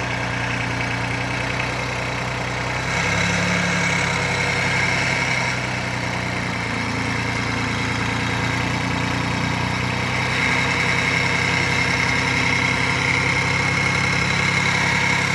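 An engine running steadily, its note shifting slightly about three seconds in and again about ten seconds in.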